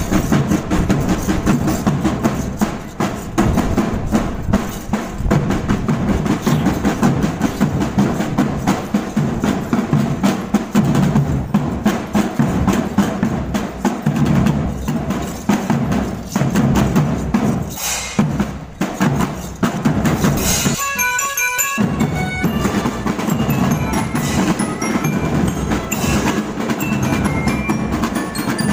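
School marching band playing: marching drums beat a steady, busy pattern together with high bell notes. About twenty seconds in, the drums stop for a moment, leaving a short run of bell notes, and then come back in.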